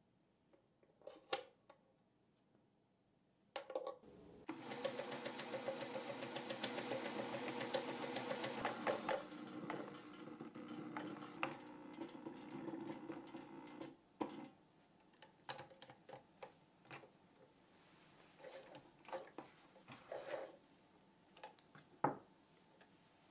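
1984 Elna Jubilee electronic sewing machine stitching: a steady whir with rapid needle ticking that starts a few seconds in, runs at its loudest for about five seconds, then eases and stops about two-thirds of the way through. A few sharp clicks come before it, and scattered clicks and ticks follow it.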